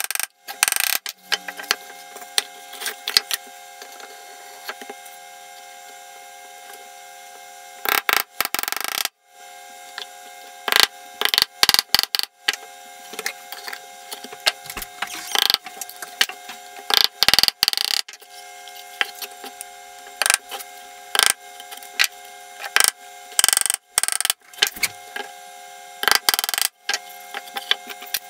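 A small hammer tapping small nails into a 6 mm plywood box, sharp taps in quick runs with pauses between, over a steady hum.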